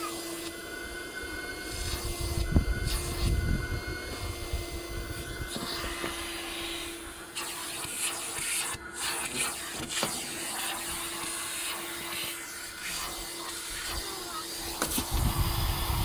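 Vacuum cleaner running steadily with an even hum, its hose nozzle pushed over a car's carpeted floor. Low rumbles come about two to four seconds in and again near the end.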